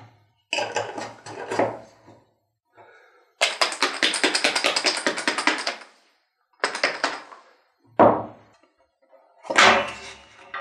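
A metal screw lid is turned onto a glass jar with a scraping clatter. Then comes a long run of fast rattling as the closed jar of small pieces is shaken. Near the end, sharp knocks sound as things are set down on a wooden tabletop.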